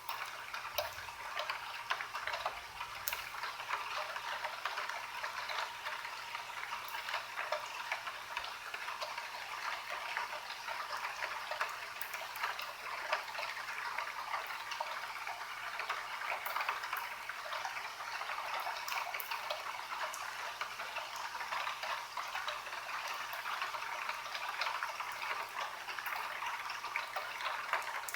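Steady rain falling, heard as a dense run of small drop ticks.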